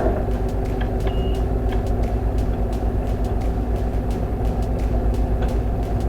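Microwave oven running on test with its door monitor switch cleaned and reconnected: a steady low electrical hum with the fan. The hum shows the repaired switch now lets the oven run.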